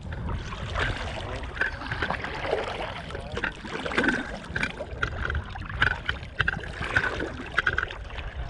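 Kayak paddling: water splashing and dripping off the paddle blade with each stroke, and water lapping at the hull. A steady low wind rumble sits on the microphone underneath.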